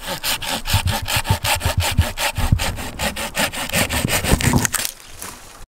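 Wicked Tree Gear folding handsaw cutting through a conifer branch in quick, even strokes, about seven rasps a second, stopping about five seconds in.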